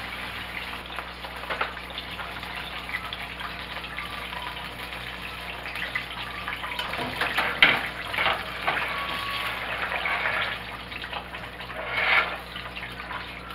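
Coated chicken pieces frying in hot oil in a skillet: a steady sizzle with small crackles and pops. It surges louder about seven and a half seconds in and again near the end, as the pieces are turned. The grease is settling down, which the cook takes as the sign that the chicken is done.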